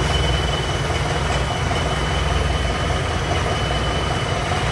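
Wheeled tractor's diesel engine idling steadily, a dense low rumble with a thin steady high whine over it.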